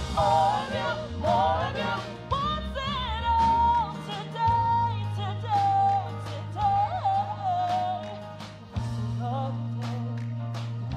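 A woman singing a gospel song in ornamented runs with vibrato, over a live church band: long held keyboard bass notes and repeated cymbal strokes.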